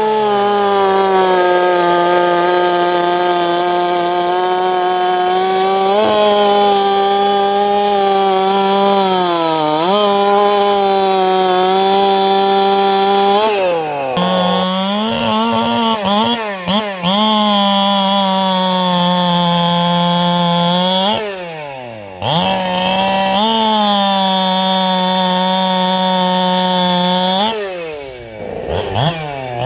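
Two-stroke chainsaw running near full throttle, its revs dropping off and picking back up several times, most deeply about 14, 22 and 28 seconds in.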